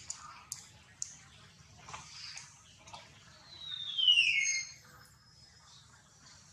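A bird's whistled call, falling steadily in pitch over about a second, comes in about three and a half seconds in and is the loudest sound. Faint higher chirps sound around it, and a few sharp clicks come near the start.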